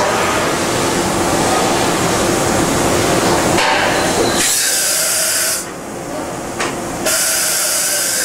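Okuma MC-50H CNC horizontal machining center running through a dry-run cycle: a dense mechanical rumble and whine of the moving axes, then two sharp-edged hissing sprays, each about a second long, starting about four and a half and seven seconds in.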